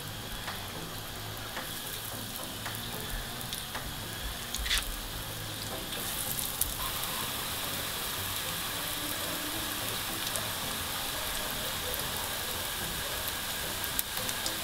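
Breaded zucchini cutlets frying in hot sunflower oil in a pan: a steady sizzle with a few faint clicks. The sizzle gets fuller and a little louder about six seconds in.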